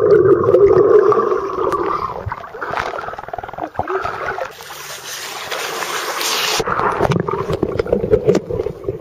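Person exhaling a stream of bubbles with his face underwater, heard as a muffled droning gurgle through a waterproof camcorder. Around four and a half seconds in, the camera breaks the surface and there is bright splashing and dripping water for about two seconds. It then goes under again, with muffled underwater gurgling and clicks.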